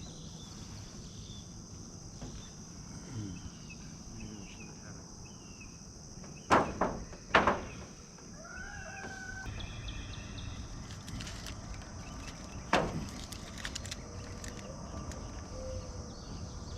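Steady high insect chorus with scattered bird chirps, broken by three sharp knocks, two close together about midway and one more a few seconds later.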